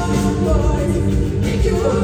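Hard rock band playing live, recorded from the audience: a woman sings a bending melodic line over electric guitar, bass and drums, loud and steady throughout.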